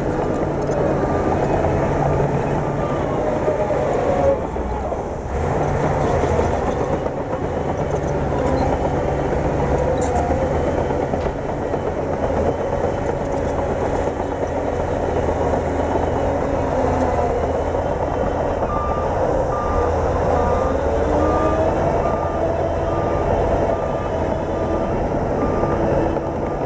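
Bulldozer's diesel engine running under load, its note rising and falling as it works. A backup alarm beeps steadily through the last several seconds.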